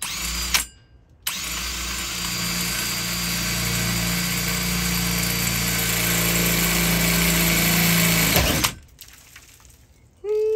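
Cordless DeWalt drill driving a Milwaukee hole dozer hole saw into the steel roof panel of a Sprinter van. A short burst comes first, then about seven seconds of steady drilling that stops suddenly. The pilot bit bores through while the saw teeth only just touch the sheet metal, scoring a ring.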